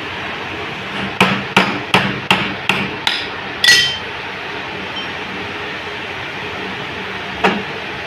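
Sharp metal-on-metal knocks, six in quick succession about 0.4 s apart, then a ringing metallic clink, and one more knock near the end, as a Honda CG 125's magneto flywheel is worked free of the crankshaft with a T-handle tool and puller.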